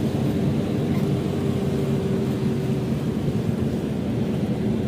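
A car driving, heard from inside the cabin: a steady engine and road drone with a constant hum.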